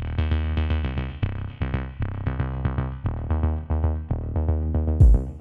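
Electronic background music: synthesizer chords over a steady drum-machine beat, with a heavier kick-drum and hi-hat section coming in near the end.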